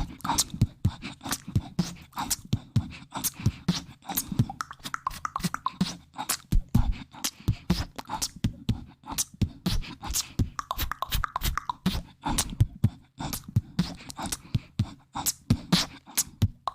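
ASMR mouth sounds close to the microphone: a fast, uneven run of wet clicks and pops, several a second, with soft low thumps under them.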